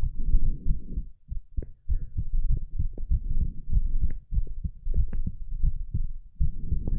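Human heartbeat heard as low thumps, mixed with low rumbling and rubbing noise from the body moving during sit-ups. The heart rate is not much quickened.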